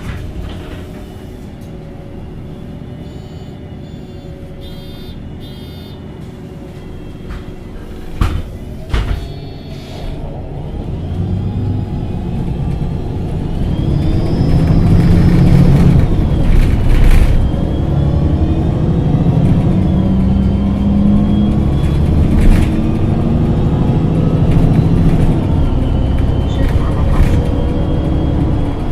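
MAN NG273T4 articulated city bus with an LPG engine idling at a standstill, with a few sharp clicks and knocks about eight seconds in. From about ten seconds in it pulls away, the engine getting louder and its note rising and stepping through gear changes.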